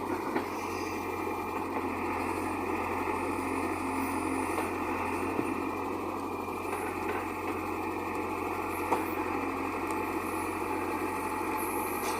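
JCB 3DX backhoe loader's diesel engine running steadily, with a few short knocks along the way.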